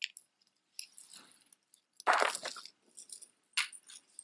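Beaded necklaces and metal chain being handled: a sharp click at the start, a light rattle of beads about a second in, then a louder clatter and rustle of beads and chain about two seconds in, and a few more clicks near the end.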